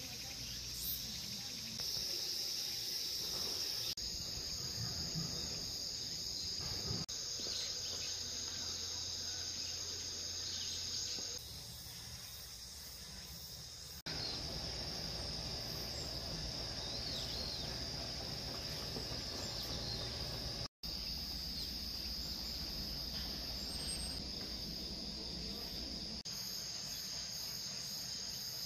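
Steady, high-pitched drone of insects calling in the surrounding vegetation, over a low rumble of wind. The sound changes level abruptly at several cuts and drops out for an instant about two-thirds of the way through.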